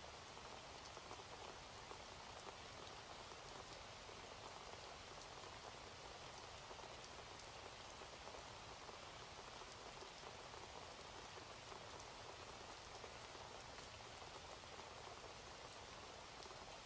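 Faint, steady rain with a fine patter of drops.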